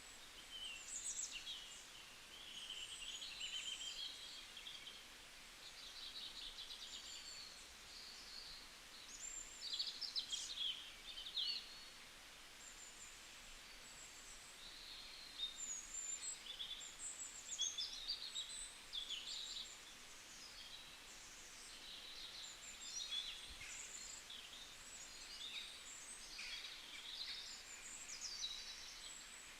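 Several songbirds chirping and singing in overlapping short calls and trills over a faint steady hiss.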